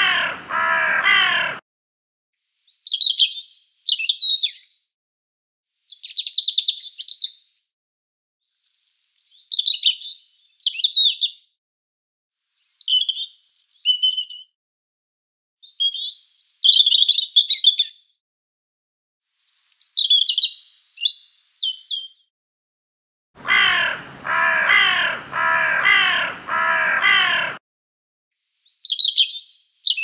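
A small songbird singing short, high, thin warbling phrases of about two seconds each, with pauses between them. A larger bird gives a run of harsh, repeated caws at the very start and again for about four seconds near the end.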